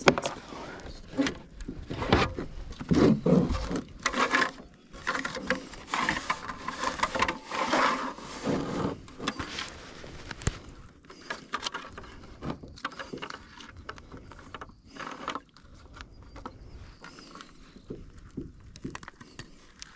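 Knocks and scrapes of a freshly caught bass being handled and laid on a plastic measuring board in a plastic kayak. The sounds are loud and close together over the first half, then thin out to lighter rustles and taps.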